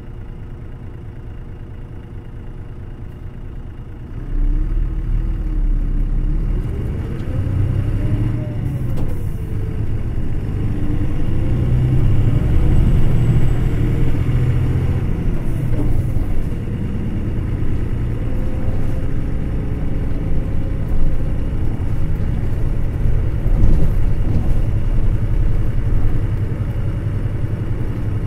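Hino Blue Ribbon City Hybrid city bus with a diesel-electric hybrid drivetrain, heard from inside the cabin as it pulls away and accelerates. About four seconds in, the drive note jumps up with a deep rumble. Its pitch then rises and drops back a couple of times as it gathers speed, and it settles into steady running.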